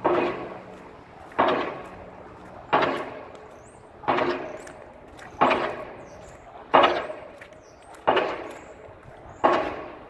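Distant pile driver's impact hammer striking a pile at a steady pace, about one blow every 1.4 seconds, eight blows in all, each ringing out briefly.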